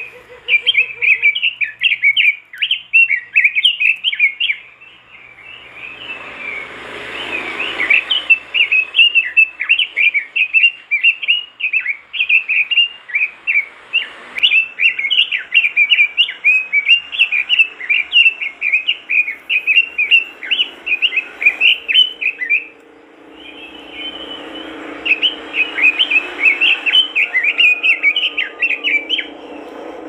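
Red-billed leiothrix (Pekin robin) singing vigorously: long runs of quick, high warbled notes rising and falling, with short breaks about five seconds in and again about twenty-three seconds in.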